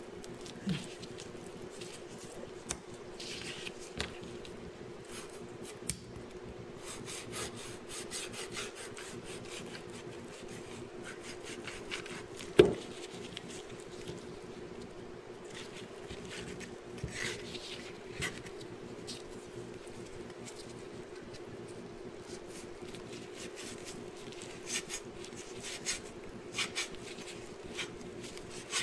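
Cleaver blade scraping along salted fish skin and flesh on a wooden cutting board, in repeated short rasping strokes, with a steady low hum underneath. About halfway through there is one sharp knock.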